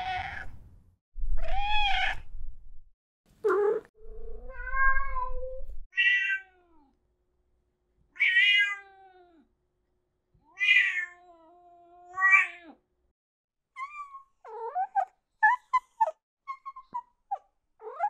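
Domestic cats meowing, one separate drawn-out meow after another with short gaps, some over a low background hum. Near the end they give way to a quick run of short, chirpy cat calls.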